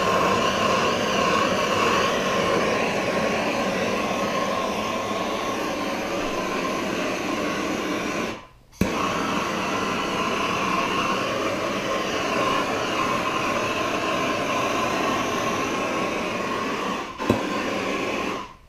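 Hand-held MAP gas torch burning with a steady hissing roar as it is swept over freshly poured epoxy resin to pop the air bubbles. About halfway through it cuts out for a moment and comes back with a sharp click. It stops just before the end.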